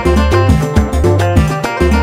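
Instrumental passage of a song: a steady, fast percussion beat over heavy bass notes and sustained melodic tones.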